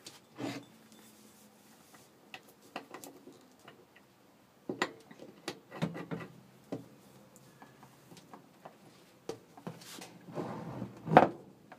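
Handling noises of a paintball air tank's coiled remote line being fitted to a launcher's fittings: scattered clicks, knocks and rubbing, with the loudest sharp clack about eleven seconds in.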